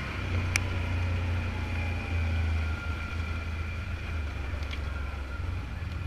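Steady low vehicle engine rumble with a faint whine above it, and a single short click about half a second in.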